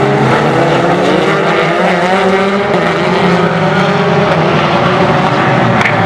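Several racing car engines running hard through a corner, their engine notes overlapping and rising and falling slightly in pitch.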